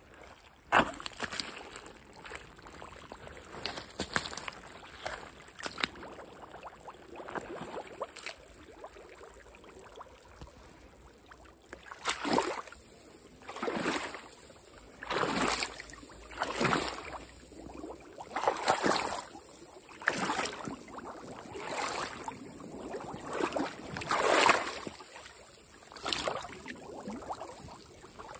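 Footsteps in high leather boots: softer steps through wet mud at first, then, from about halfway through, louder splashing strides wading through a shallow stream, about one every second and a half.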